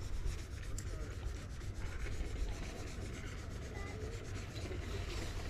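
Spinning reel being cranked steadily during a retrieve: a soft, even rubbing and scratching from the reel and the sleeve moving close to the microphone, over a low rumble.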